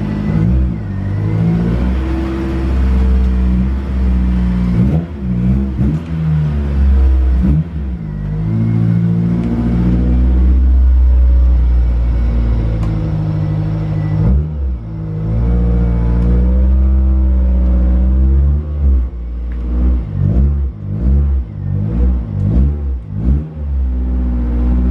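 Car engine being revved: it holds a steady high rev for a few seconds in the middle, then gives a quick run of short throttle blips near the end.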